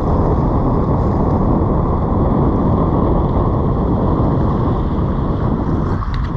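Loud, steady wind buffeting the microphone, a low rumbling noise with no break.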